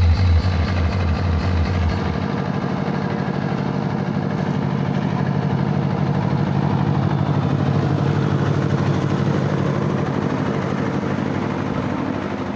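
Large DJ sound system at a sound check, playing a heavy, regular bass pulse of about three to four beats a second. About two seconds in, this gives way to a steady, buzzing low drone.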